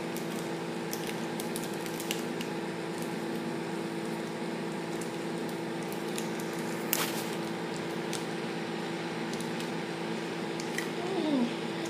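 Faint rustles and light clicks of small packets of coloured sand being handled and opened over a steady background hum, with one sharper click about seven seconds in.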